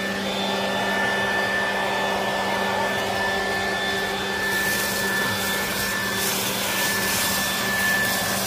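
Handheld electric leaf blower running steadily as it blows fallen leaves across grass: a constant motor whine over the rush of air, the air noise growing brighter about halfway through.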